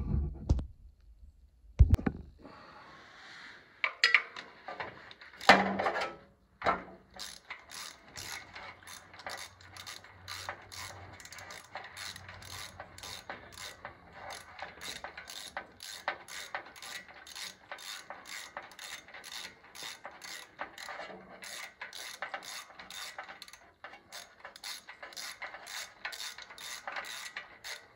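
Ratchet wrench clicking in a steady run, about two to three clicks a second, as a spark plug is turned out of or into a Subaru Sambar's small four-cylinder engine. A few separate knocks come first, in the opening seconds.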